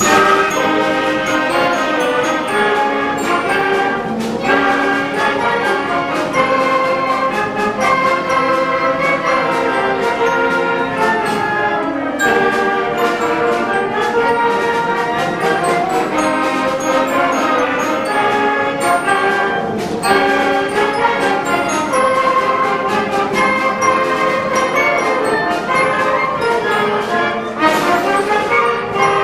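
School concert band playing a piece, with brass instruments prominent in sustained chords and moving melodic lines.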